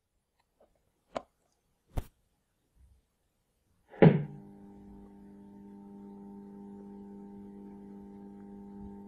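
Two sharp clicks about one and two seconds in as the homemade 10 MHz shortwave transmitter's slide switch is worked, then a loud pop about four seconds in and a steady hum of several tones as the transmitter comes on.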